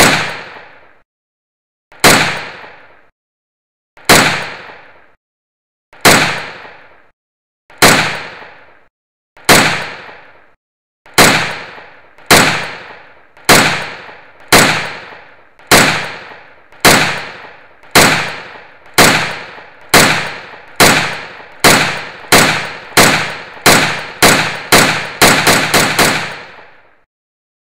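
A series of single gunshots, each with a long echoing tail. They come about two seconds apart at first, then ever faster, until about two dozen shots crowd together near the end.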